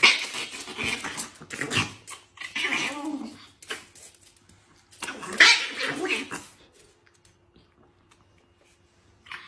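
A dog vocalising in several loud calls over the first six seconds or so, then falling mostly quiet.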